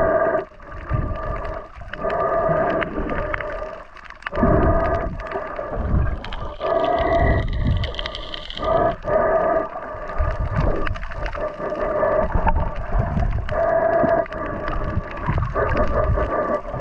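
Underwater sound recorded on a diving camera: water surges and sloshes heavily against the housing again and again. Through it runs a steady multi-tone hum that fades in and out every second or two.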